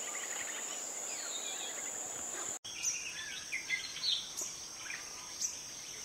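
Forest ambience: a steady high-pitched insect drone with faint scattered bird chirps. The ambience drops out for a moment about two and a half seconds in and resumes, with a few sharper short bird notes after that.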